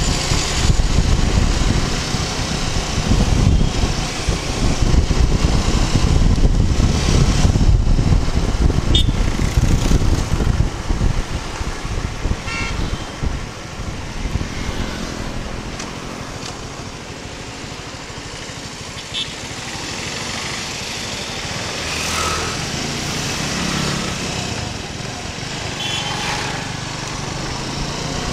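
Riding a Suzuki Gixxer 250 motorcycle through town traffic: wind rumbling over the microphone and the single-cylinder engine running. The wind is heavy for about the first fifteen seconds, then eases, leaving the engine and traffic plainer, with a few short horn toots now and then.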